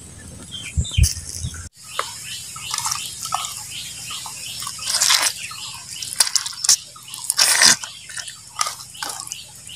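Wet squelching and clicking of hands pressing a raw pork, onion and chilli mixture down into a green bamboo tube, with small birds chirping in the background.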